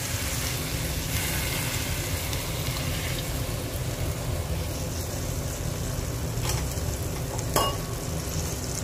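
Chicken and tomato-onion masala sizzling steadily in a pot over a gas flame as the ground paste and water go in. Two short sharp knocks come in the second half.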